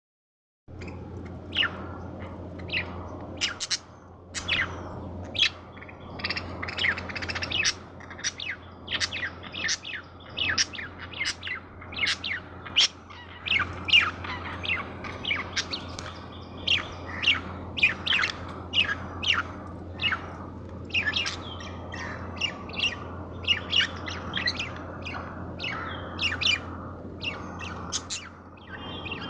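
Baby bird chirping rapidly and continuously: short, sharp high-pitched chirps, several a second.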